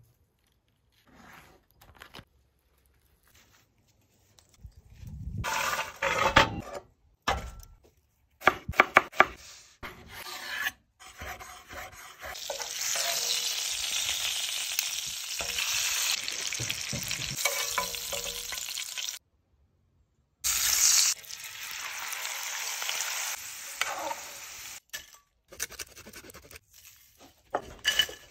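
Magret duck breast sizzling in a pan in its own rendered fat, a steady frying hiss broken by a short cut about two-thirds of the way through. It is preceded by scattered knocks and clatter of pan and tongs.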